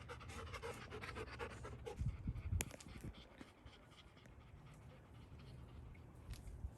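Golden retriever panting in quick short breaths, with a few low thumps and a sharp click about two seconds in.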